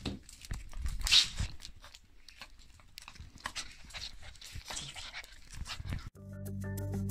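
Maltese dog's faint, irregular breathy snuffling, with rustling and small knocks as a hand pets it. Background music starts near the end.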